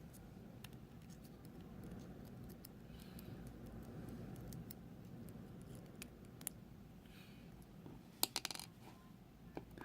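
Faint small metal clicks of lock pins and springs being handled while a pin-tumbler core is taken apart, with a quick cluster of sharper clicks about eight seconds in, over a low steady hum.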